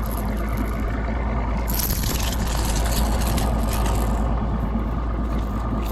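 Small fishing boat's outboard motor running steadily at low trolling speed, with a rushing hiss over it for a couple of seconds near the middle.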